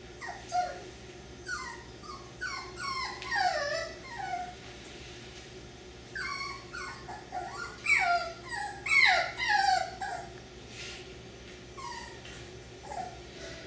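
Cockapoo puppy crying in strings of short, high cries that each fall in pitch: one run in the first few seconds, a second, louder run after a short pause, and a few last cries near the end.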